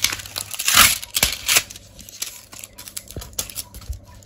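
Paper and card packaging rustling and tearing as a posted SIM card pack is opened by hand. The loudest rips come in the first second and a half, followed by smaller crinkles and clicks.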